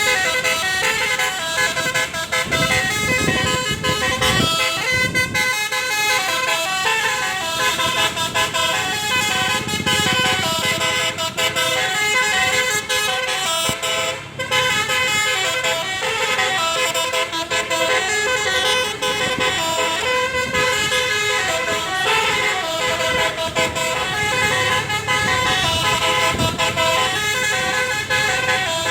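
Bus telolet horn, a set of electric air-horn trumpets, playing a melody of quick stepped notes without a break. A bus engine runs beneath it in places.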